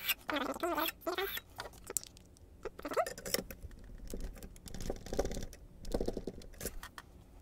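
Key blank scraping and clicking in a pin tumbler lock as it is pushed in and twisted to mark it from the pins for impressioning, with handling noise from the vise-mounted lock. A brief wavering squeak comes in the first second, then scattered small clicks and scrapes.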